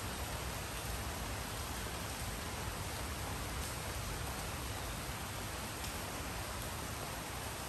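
Steady rain falling: an even hiss, with a few faint separate drop ticks.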